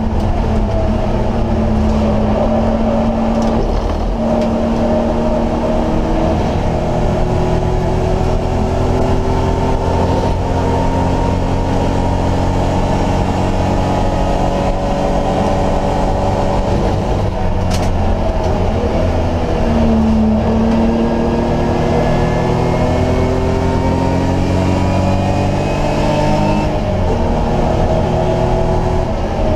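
BMW E30 race car's engine heard from inside the cabin at racing speed, its revs climbing and dropping again and again through the lap, over steady road and tyre noise. A single sharp click about eighteen seconds in.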